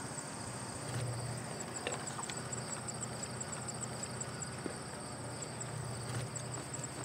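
Insects chirping in rapid high trills over the low, steady rumble of a distant diesel locomotive approaching with its train.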